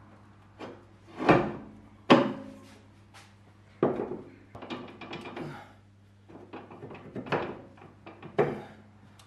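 Irregular metal clunks and knocks as a Saab 900's front wheel hub and steering knuckle is handled and fitted onto the suspension arms. The knocks are separate, each with a short ring, several of them loud.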